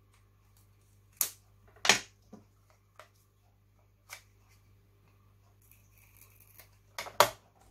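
Sharp clicks and taps of thick card strips and scissors being handled and set down on a cutting mat, a few scattered knocks with the loudest pair in the first two seconds and another near the end.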